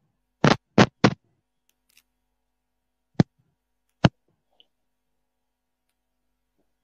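Short sharp clicks or pops: three in quick succession in the first second or so, then two single ones about three and four seconds in, with dead silence between them. The sound cuts in and out.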